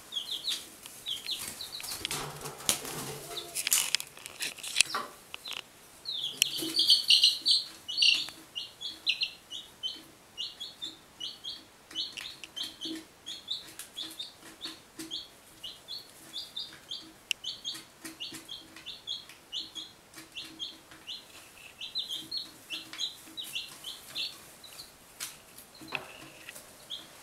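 Week-old chicks peeping non-stop, short high cheeps several a second. A rustling scuffle comes about two to five seconds in, and briefly again near the end.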